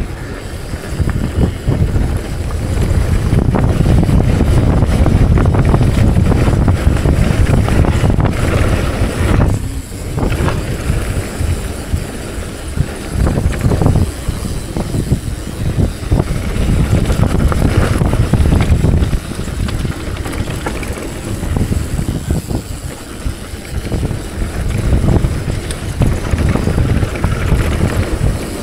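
Wind buffeting the microphone of a mountain bike riding a trail, over a constant rattle and clatter of the bike on rough ground. It eases briefly about ten seconds in and again around twenty seconds.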